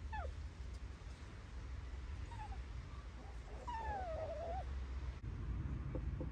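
Miniature dachshund whining: a short whine that slides down in pitch at the start, then a longer wavering whine that falls in pitch about four seconds in, over a steady low rumble.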